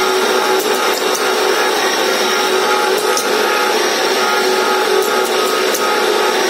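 Special-purpose machine running steadily as it machines a pressure cooker vessel nut: a steady mechanical hum with a constant whine and a few faint clicks.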